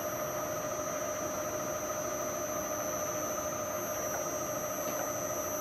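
The spindle motor and belt drive of an Acra Bridgeport-clone milling head running with a steady whine while the power quill down feed is engaged, the newly fitted belt adding some noise.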